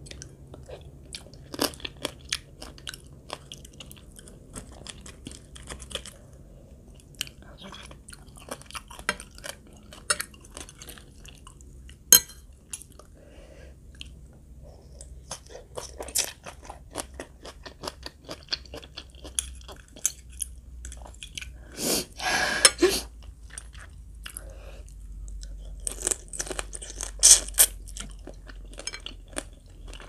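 A person chewing and crunching a spicy green mango and crab salad close to the microphone. Crisp crackles run throughout, with louder stretches of crunching about two-thirds through and again near the end.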